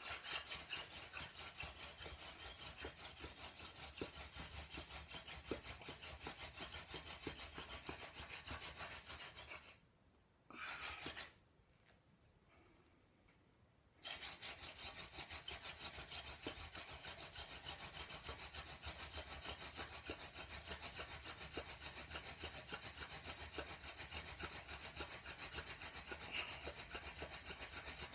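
Hand-drill friction fire: a burdock spindle twirled back and forth between the palms, grinding into a willow hearth board with a rapid rhythmic wooden rubbing. It stops for about four seconds midway, with one brief sound in the pause, then starts again.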